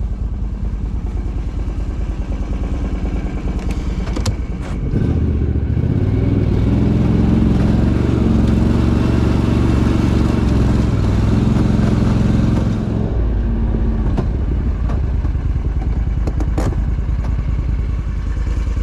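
Argo 8x8 750HDi's V-twin engine, heard from the driver's seat, running steadily, then revving up about five seconds in and holding high for roughly eight seconds as the eight-wheeler drives up the slope, before easing back. A few sharp clanks come a little after four seconds and again around sixteen.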